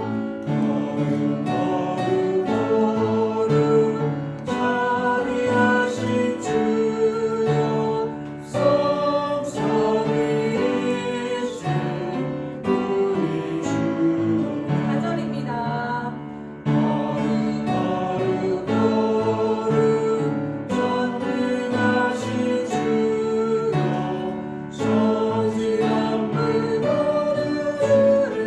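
Congregation singing a hymn together with instrumental accompaniment, in held, phrased lines with short breaks between them.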